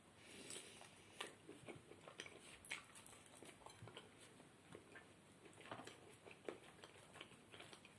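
Faint chewing: a person eating, with soft, irregular mouth clicks and smacks.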